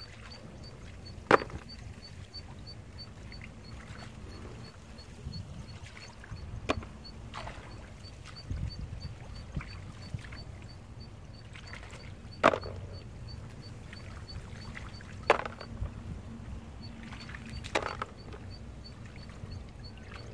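Freshwater clams dropped one at a time into a plastic basin while gathering them from shallow water: a sharp clack every few seconds, about five in all, the loudest about a second in, over a low steady rumble.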